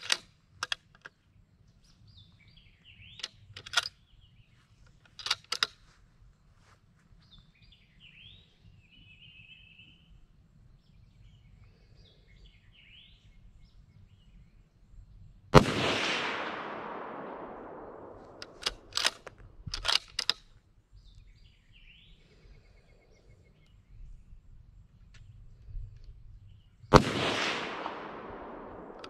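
A bolt-action precision rifle is fired twice, about eleven seconds apart, each report followed by a long echo dying away. Sharp clicks, as of the bolt being worked, come before the first shot and a few seconds after it, with faint bird chirps in the quiet stretches.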